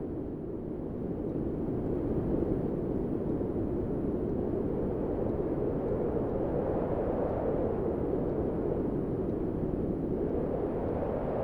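Cinematic wind sound effect: a steady, low rushing of wind that swells about two seconds in and turns a little higher near the end.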